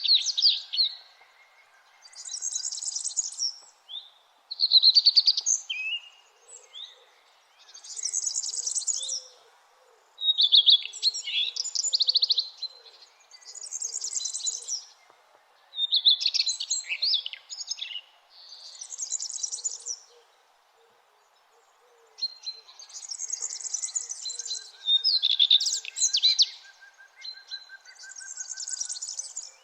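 Songbirds singing, one short song phrase every two seconds or so, high phrases alternating with lower, more varied ones, over a faint steady background hum.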